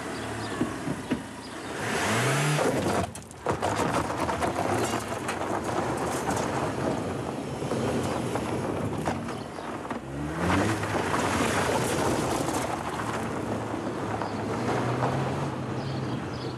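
Car engine revving hard twice, pitch rising each time, over a loud continuous hiss of tyres skidding and spraying gravel.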